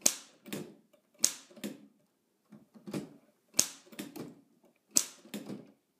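Oliver No. 9 typewriter keys being struck one at a time: a run of sharp clacks, about two a second, each loud strike followed by a softer click, with a short pause about two seconds in. The carriage steps forward only because the stiff ribbon vibrator is being pushed forward and back by hand.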